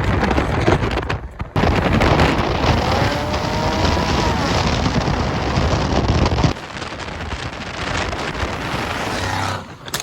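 Car engines and road noise, a dense low rumble with wind buffeting the microphone. The sound cuts out briefly about a second in and drops noticeably in level about six and a half seconds in.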